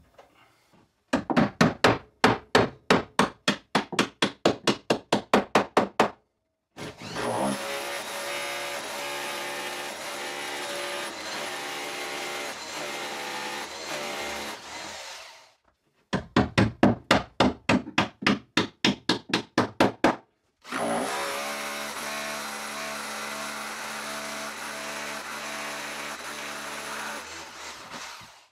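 Corded power drill at work fixing a wall shelf: two spells of rapid knocking, about five knocks a second, each followed by several seconds of the drill motor running steadily. The motor winds down near the end.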